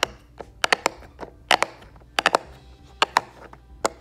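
Silicone pop-it fidget toy pressed bubble by bubble with the fingertips: a quick, irregular run of sharp little pops, about three or four a second, some in quick pairs.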